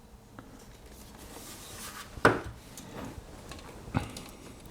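Swiss Army pocket knives being handled, with faint rubbing and two sharp metal clicks about a second and a half apart, the first the louder.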